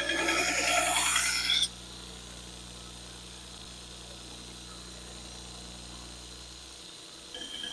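Steel knife blade ground against a powered sharpener, a loud rasping grind with a high metallic ring for about a second and a half as the edge is run down. After it the machine's motor keeps humming steadily until it stops about seven seconds in, and a shorter grinding pass starts near the end.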